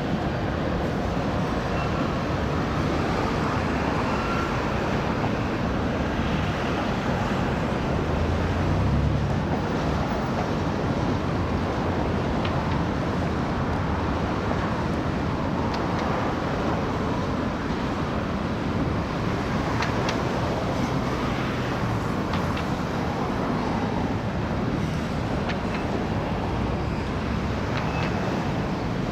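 Diesel freight locomotive engine working under load as it pulls a string of loaded grain cars: a steady low rumble that swells about nine seconds in.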